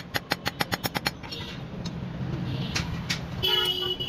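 A blacksmith's hammer striking metal on a small anvil: a quick run of about eight light blows in the first second, then two single strikes. Near the end a vehicle horn sounds one steady note.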